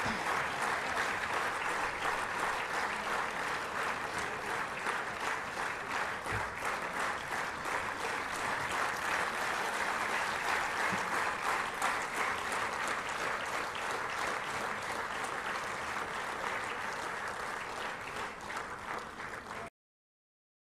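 Sustained audience applause, a dense, steady patter of many hands clapping that cuts off suddenly near the end.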